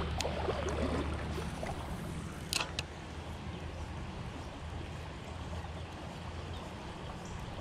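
Shimano Ultegra 1000 spinning reel being cranked to retrieve a spinner, a low steady hum over the rush of a shallow creek, with one sharp click about two and a half seconds in.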